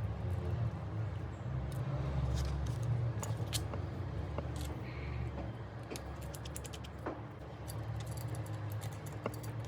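Small tools and parts clicking and tapping irregularly while an iPhone 4 is taken apart by hand, over a low steady hum.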